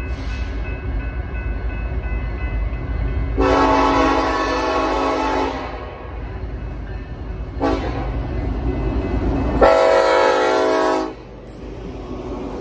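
Locomotive air horn on an approaching BNSF coal train sounding two long blasts for a grade crossing, the second louder as the lead unit comes close. Diesel locomotive rumble runs underneath.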